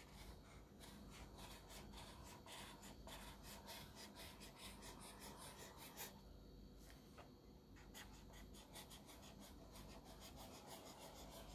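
Faint scratching of a handmade bamboo dip pen's nib on paper, a run of many short strokes as it writes.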